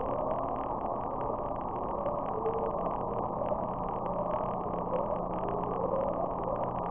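NOAA hydrophone recording of the Upsweep, an unidentified deep-ocean sound, sped up about sixteen times from infrasound: short rising sweeps, about one a second, over a steady hiss of ocean noise and a low steady hum.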